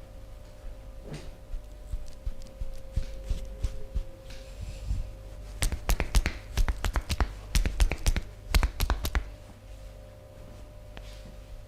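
Massage by hand: soft rubbing thumps, then about three seconds of rapid, sharp slaps and taps of the hands, around four a second, before it settles again.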